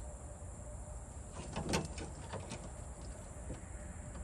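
A few short clicks and rattles from wiring and hand tools being handled, bunched together about a second and a half in, with one more faint click near the end.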